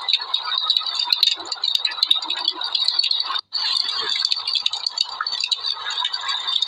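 Wood fire in a fireplace crackling: dense, irregular snaps and pops over a steady hiss, cutting out for a moment about three and a half seconds in.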